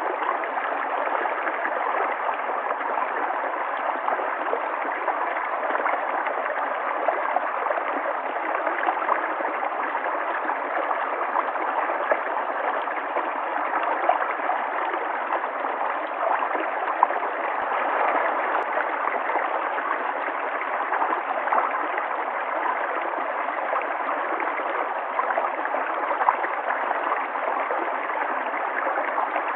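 River water flowing and gurgling steadily, with small splashes flickering through the rush.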